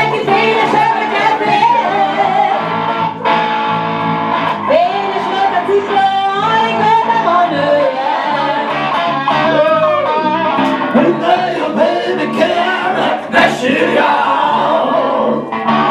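Live blues band playing electric guitar and bass guitar, with a man singing into a microphone.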